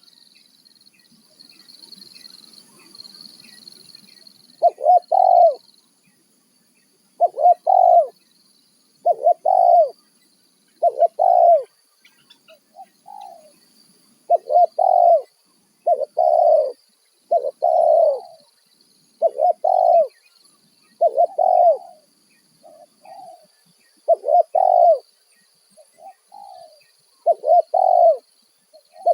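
Spotted dove (tekukur) cooing over and over, a loud phrase about every one and a half to two seconds, with a few softer coos in between. A faint steady high hiss runs underneath.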